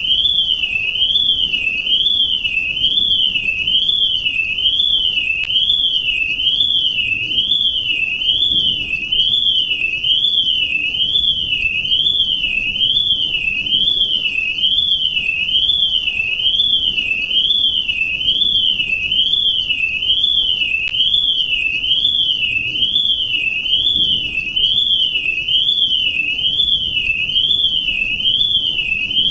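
Electronic alarm tone warbling continuously: a single high-pitched tone sweeping evenly up and down, over and over, at a steady level.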